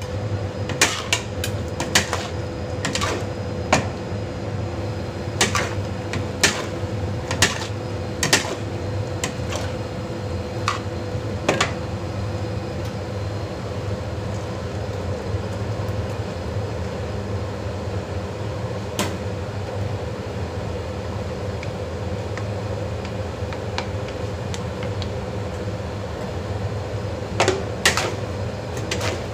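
Metal ladle and spatula clanking and scraping against a large aluminium wok while stir-frying, in a run of sharp strikes over the first dozen seconds, one more later, and another cluster near the end. Under them runs a steady kitchen hum.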